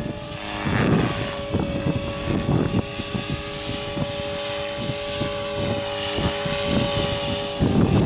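Align T-Rex 500 electric RC helicopter in flight, with a steady high whine from its motor and rotors, while wind gusts buffet the microphone. Near the end the whine cuts off and wind buffeting takes over.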